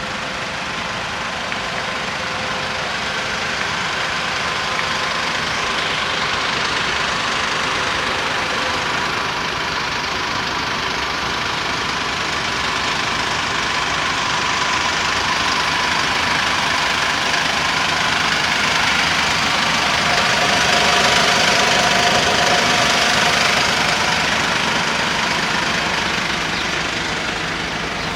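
Mercedes Sprinter 516 van's diesel engine idling steadily.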